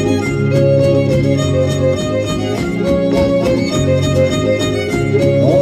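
Dance music with a violin lead over quickly strummed guitar in a steady, even rhythm.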